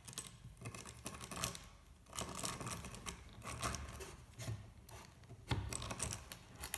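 Geared hand drill boring a twist bit into wood: a scratchy, rasping cutting sound with clicks, swelling and fading about twice a second as the crank turns.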